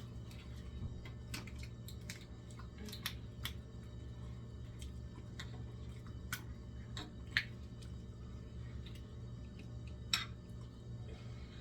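People eating at a table: scattered small clicks and wet mouth sounds of chewing, with two sharper clicks late on, over a steady low hum.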